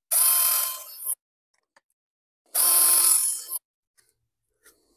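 Cordless drill running in two short bursts of about a second each, its bit drilling small holes through a plastic license-plate transponder holder.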